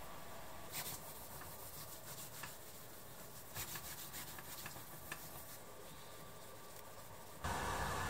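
Mammoth-tooth-handled knife being handled and slid into its leather sheath: soft rubbing with a few light clicks. About 7.5 s in, a louder steady hiss with a low hum begins.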